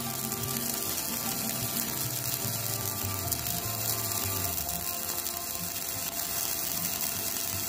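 Stick-welding arc burning a 2.5 mm electrode on steel: a steady crackling hiss that stops abruptly near the end as the arc is broken.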